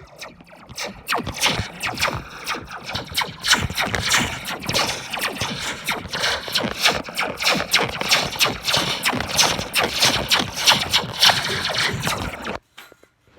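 A Slinky spring recorded from inside its coils, rattled and struck over and over so the coil rings in a rapid stream of zaps that sound like lasers, cutting off suddenly near the end.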